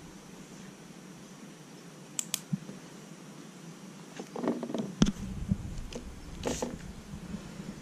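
Plastic Lego bricks being handled and pressed together: a pair of sharp clicks about two seconds in, then a scatter of clicks and rustling, the loudest click about five seconds in.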